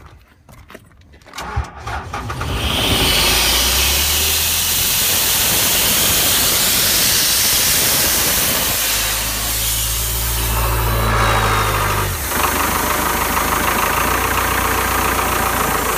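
John Deere diesel engine of an Ingersoll Rand 185 towable air compressor starting up about two seconds in, then running steadily and loudly with a strong hiss over the engine note.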